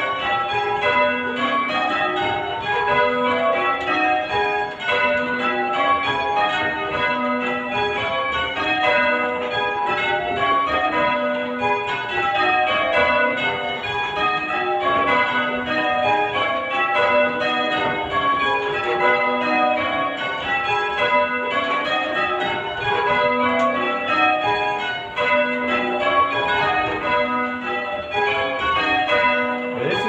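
Change ringing on a light ring of six church bells tuned in B, with a 6¾ cwt tenor, heard from the ringing chamber below. The bells strike in a continuous, even stream, their order sounding in repeating descending runs.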